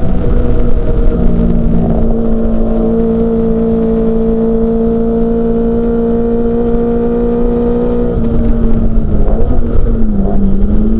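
Racing Mini Cooper S's four-cylinder A-series engine held at steady high revs for several seconds. About eight seconds in, the note breaks up and drops, as when lifting off and downshifting for a corner. It then climbs again under acceleration near the end.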